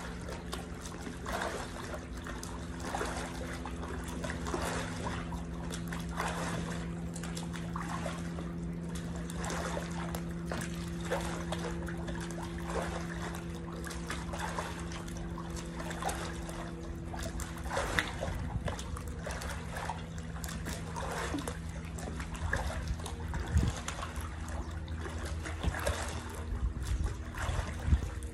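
Pool water sloshing and splashing as a person wades and sweeps her arms through it, in many small irregular splashes, over a steady low hum.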